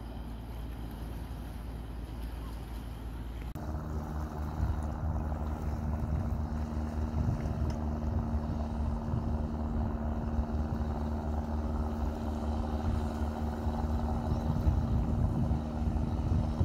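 Engine of a small kolek fishing boat running steadily as the boat passes close by, a steady hum that grows a little louder toward the end. For the first three and a half seconds there is instead a low rumble, which cuts off abruptly.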